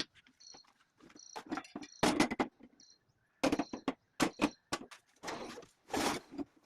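Packaging being handled during an unboxing: irregular rustling, scraping and clicks, with short squeaky bits. The loudest handling comes about two seconds in and again near the end.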